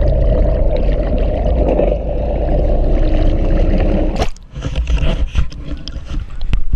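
Underwater rush of water against a GoPro camera housing held under a boat's side. About four seconds in the camera breaks the surface and the sound turns to dripping, splashes and knocks on the housing.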